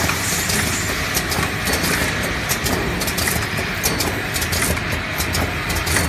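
Automatic eye-drop bottle filling, plugging and capping machine running: a steady mechanical hum with frequent irregular clicks and clatter.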